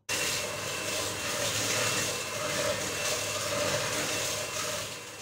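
Electric hand mixer running steadily, its beaters creaming butter and sugar together in a bowl.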